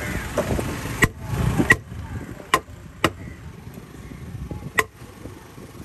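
Heavy knife chopping through fish on a cutting block: five sharp strikes at uneven intervals, with voices murmuring behind.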